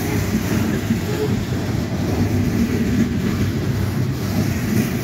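Loaded coal cars of a freight train rolling past at close range: a steady low rumble of steel wheels on rail.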